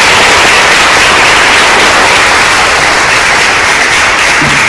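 Large audience applauding, a loud and steady clapping.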